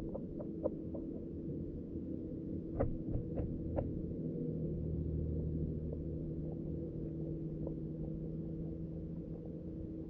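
Muffled underwater ambience picked up by a submerged camera: a steady low hum with a faint held tone. A few scattered clicks come early, and a quick run of four sharper clicks about three to four seconds in.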